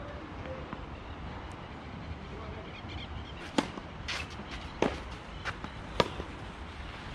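Tennis ball struck by rackets in a rally: three sharp hits about a second apart, with softer knocks between them.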